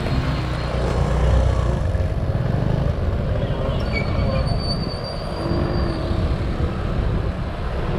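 Steady heavy vehicle rumble, with a thin high squeal that starts about four seconds in and lasts about two seconds.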